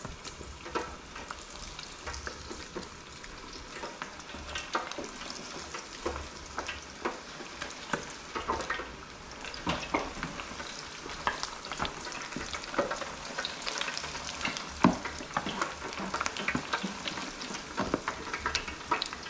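Flour-battered chicken wings frying in hot oil: a steady sizzle with frequent crackling pops throughout.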